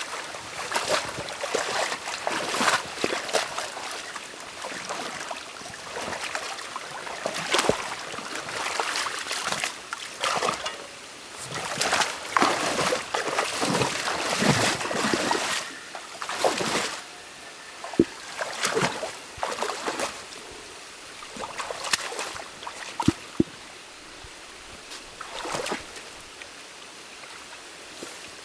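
Stream water running and trickling through a beaver dam being taken apart by hand, with irregular splashes and a few sharp knocks as dam material is pulled and moved in the water.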